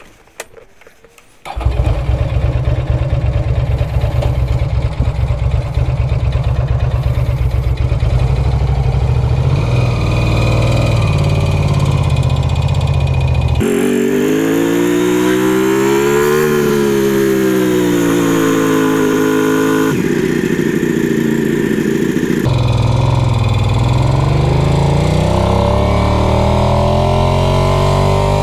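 Motorcycle engine starting about a second and a half in, then idling steadily. About halfway through it pulls away, its pitch rising and falling with the throttle and gear changes as it gets under way.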